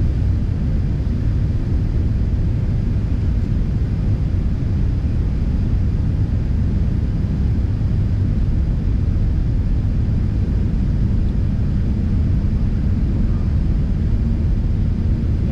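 Steady low rumble of a jet airliner's engines and rushing air, heard inside the passenger cabin during the climb after take-off.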